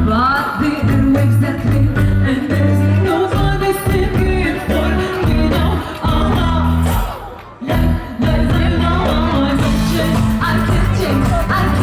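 A live band playing amplified music with a singing voice over heavy, held bass notes. The music breaks off briefly about seven and a half seconds in, then comes back in.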